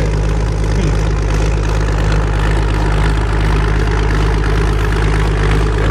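Vehicle engine idling steadily, a low even hum with a fast regular chug over it.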